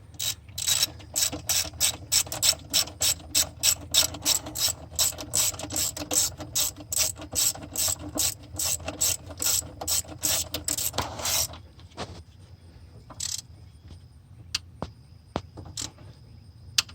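Hand ratchet wrench clicking in steady strokes, about three clicks a second, as it runs down the last alternator mounting bolt. The clicking stops about eleven seconds in, leaving a few scattered clicks.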